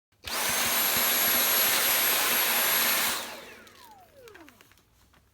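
Dyson V8 cordless vacuum running for about three seconds with a loud rush of air and a high steady whine, then switched off: the motor winds down with a falling whine.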